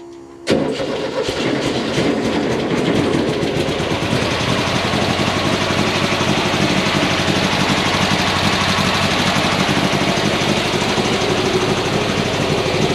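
VW Beetle rally car's engine fires up about half a second in and keeps running steadily.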